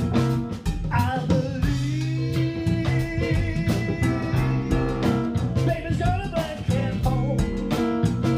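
A band playing a blues jam: a drum kit keeps a steady beat under a bass line. About a second in, a long held note, bent at the start, rings for several seconds over the rhythm.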